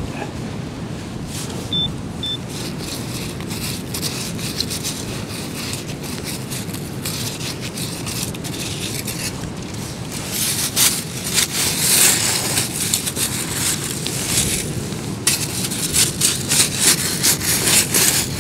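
Wind buffeting the microphone throughout. From about ten seconds in, a metal sand scoop digs into beach shingle and is shaken, pebbles and sand rattling and scraping in its slotted basket in quick repeated strokes that grow louder toward the end.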